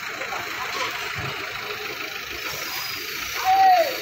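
Forklift engine running steadily, with a loud single-pitched call or whistle about three and a half seconds in that holds for half a second and then drops in pitch.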